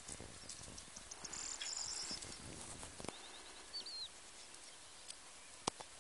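Faint open-field ambience with a few short, high bird chirps in the first few seconds and a single sharp click near the end.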